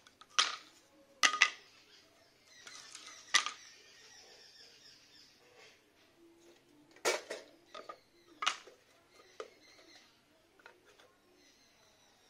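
About a dozen sharp clicks and knocks of small hard objects at irregular intervals, some louder than others, with a faint hiss between them.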